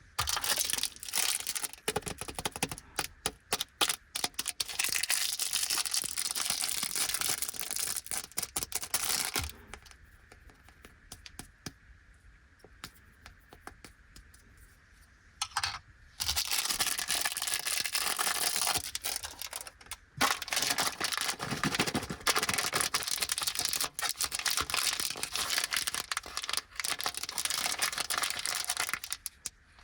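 Crinkly plastic snack wrappers being handled and torn open, with dense crackling bursts. In a quieter stretch in the middle there are only scattered small clicks before the crinkling starts up again.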